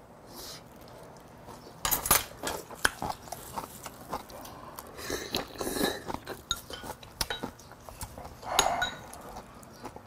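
Eating at a table: metal chopsticks and a spoon clicking against bowls and dishes, with chewing, and a slurp of thick stew from the spoon about five to six seconds in.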